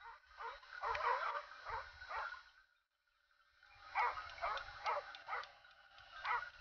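Hunting dog barking and yelping in quick runs of short calls, breaking off briefly about three seconds in.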